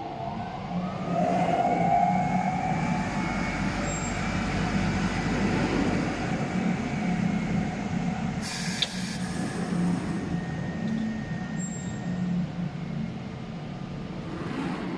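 Glass cutting and breaking table machinery running: a steady motor hum with a whining tone that rises over the first couple of seconds. About eight and a half seconds in there is a short burst of hiss with a sharp click.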